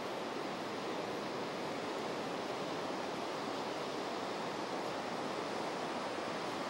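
Steady, even noise of ocean surf mixed with wind.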